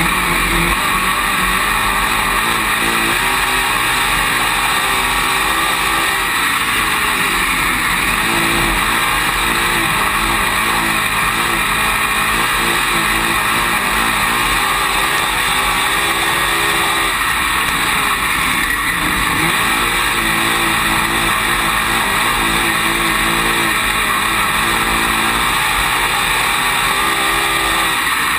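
Dirt late model race car's V8 engine running hard, heard from inside the cockpit, its pitch falling off into each corner and climbing again down each straight, lap after lap.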